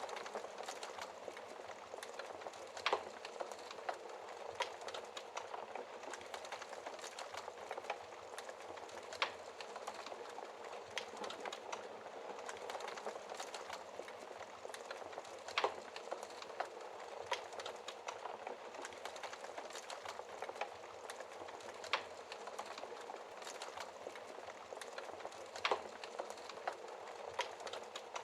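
Wood fire in a fireplace crackling steadily, with sharp, louder pops every few seconds.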